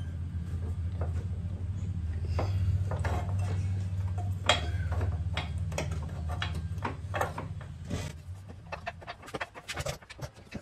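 Scattered metallic clicks and knocks as the clutch slave cylinder is handled and wiggled into place on a Honda ST1300 motorcycle. Under them runs a steady low hum that stops suddenly about eight seconds in; after that the clicks come faster.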